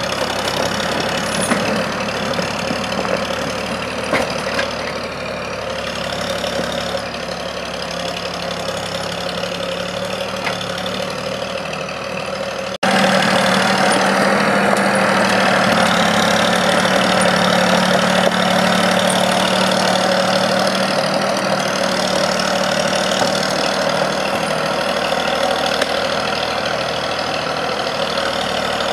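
Diesel engine of a small forestry forwarder running as the machine drives over rough forest ground, its engine speed rising and falling slightly. About 13 seconds in the sound cuts abruptly and is louder afterwards.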